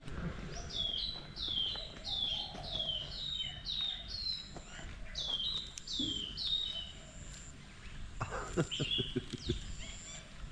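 A run of quick high chirps from a small chipmunk-like squirrel, each chirp sliding down in pitch, about one and a half a second, stopping about seven seconds in. A few sharp knocks follow near the end.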